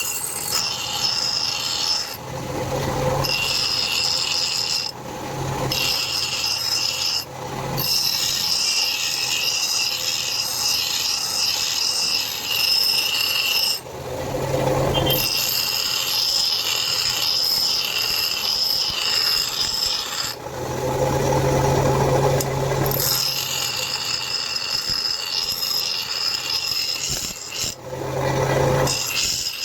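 Electric grinder grinding a steel spear blade cut from a truck leaf spring, a steady grinding with a high ring. It breaks off several times as the tool lifts from the metal, leaving the lower hum of the motor.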